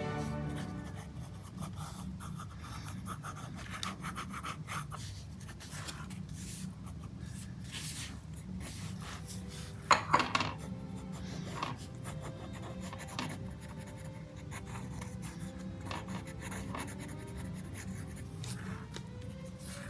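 Ink pen scratching across sketchbook paper in short, quick strokes, with one sharp knock about halfway through.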